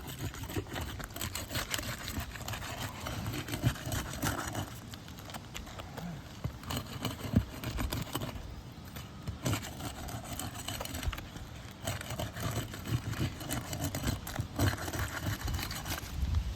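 Irregular light knocks and scuffs of footsteps on an asphalt shingle roof.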